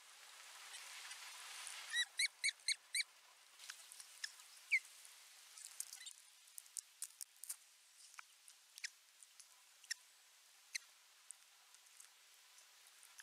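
Osprey calling: a quick run of five short whistled notes about two seconds in, followed by scattered short chirps and clicks.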